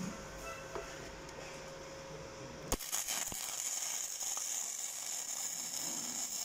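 Gasless flux-core wire-feed welding arc (1 mm E71T-GS wire on a Gladiator IMET 7160 multiprocess inverter) laying a bead on steel tube and plate. After a faint steady hum, the arc strikes with a sharp crack about two and a half seconds in and then runs with a steady crackling sizzle, the welder set lower so the bead does not burn through.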